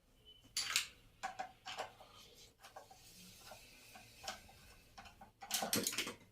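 Irregular light clicks and taps of small hard parts being handled as an angle grinder's carbon-brush holder is taken apart, with a louder cluster of clatter near the end.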